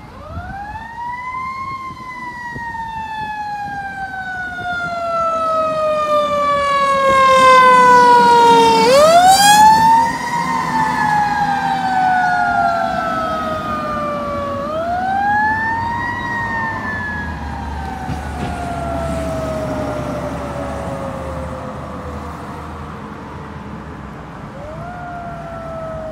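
Fire engine's siren wailing: each cycle winds up quickly and then slides slowly down in pitch, four times over. It grows louder to a peak about nine seconds in, then drops back and fades as the engine moves off.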